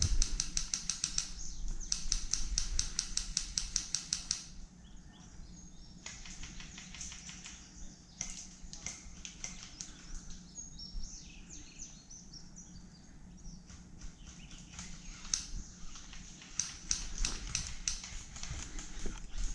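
Footsteps crunching through dry leaf litter and twigs in woodland. A fast, even run of clicks is loudest in the first four seconds and comes back near the end.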